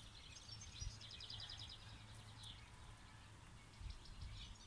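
Faint outdoor ambience with small songbirds chirping, including a fast trill of high, evenly repeated notes about a second in, over a faint low rumble.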